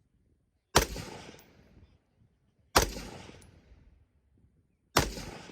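Three gunshots about two seconds apart, each sharp crack trailing off in an echo lasting about a second.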